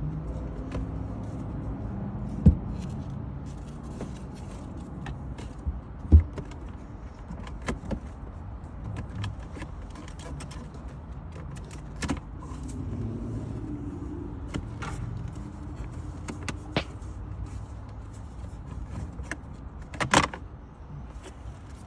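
Scattered plastic clicks and knocks as a car's cabin air filter is refitted behind the glove box and the glove box closed back up, over a low steady hum.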